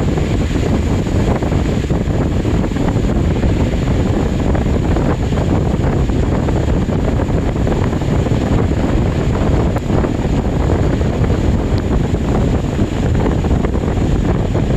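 Steady wind buffeting the microphone, loudest in the low rumble, with sea waves washing underneath.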